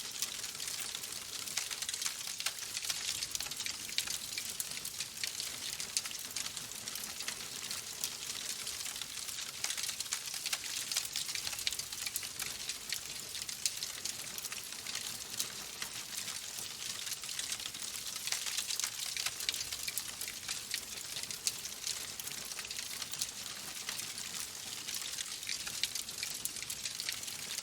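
Log fire crackling in a fireplace: a dense, steady run of small snaps and pops over a hiss.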